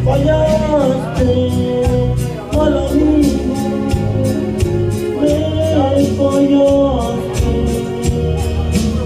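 A man singing long, wavering held notes into a handheld microphone over amplified backing music with a steady bass line and an even beat.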